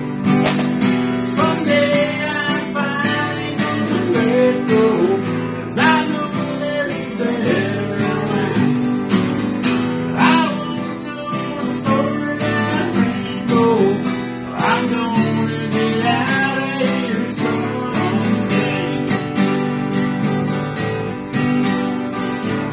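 Two acoustic guitars played together, strummed chords with a melodic line wavering over them.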